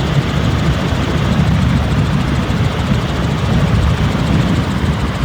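Helicopter in flight: a steady, loud rumble of rotor and engine.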